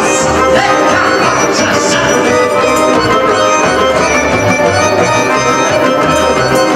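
Live band playing Romani dance music, an accordion to the fore over a steady beat.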